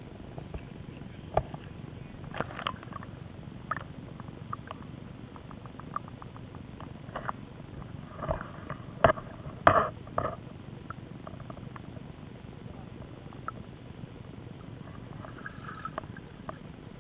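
Handling noise of a camera being carried or covered: scattered clicks, knocks and rustles over a steady hiss, loudest about nine to ten seconds in.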